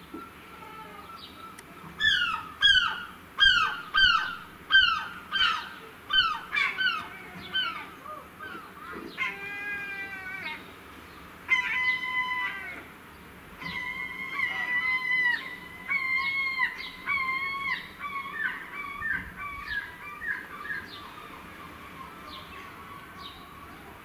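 A gull calling in a long series of loud yelping cries, starting about two seconds in at roughly one and a half a second, with a few longer drawn-out calls in the middle, trailing off near the end.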